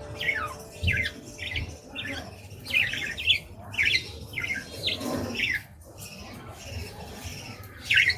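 Budgies calling: a string of short, downward-sliding squawks and chirps, several a second, thinning out after about six seconds with one more call near the end.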